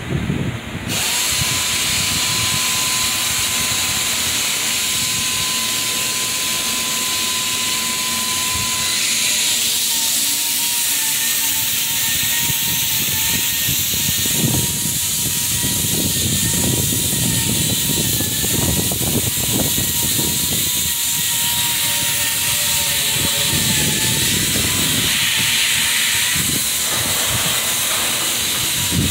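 Loud, steady hissing that starts abruptly about a second in, with a thin, slightly wavering whine running through it.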